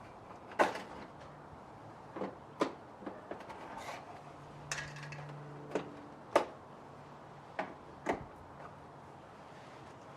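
Irregular sharp plastic clicks and knocks, about nine in all, of pliers and hands working the headlight washer parts on a car's plastic front bumper.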